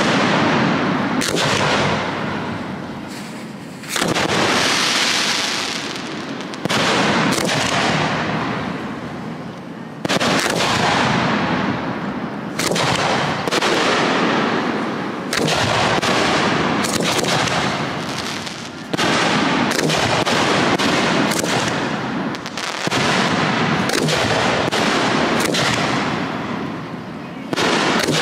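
Aerial firework shells bursting in a steady string, a sharp bang every one to three seconds, each followed by a long rolling echo that fades away.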